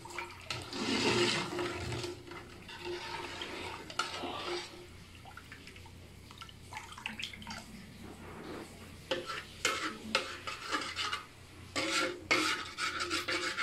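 A steel ladle stirring a thin, watery curry base in a large metal pot: liquid swishing and sloshing, with the ladle knocking and scraping against the pot's side in a quick run of clicks during the last few seconds.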